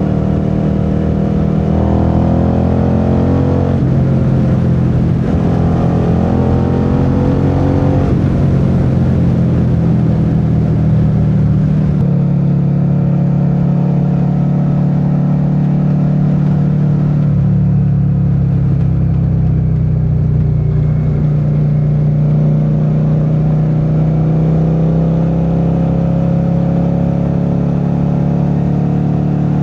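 Suzuki SV650's V-twin engine under way, rising in pitch as it accelerates through the gears with breaks at the shifts in the first eight seconds or so, then running at a steady cruise. Wind and road noise run underneath.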